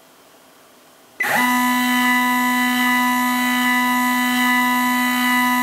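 Stepper motor driving a Sherline rotary table starts about a second in, its pitch sweeping quickly upward as it ramps up to speed, then holds a loud, steady whine of several tones as the table indexes round.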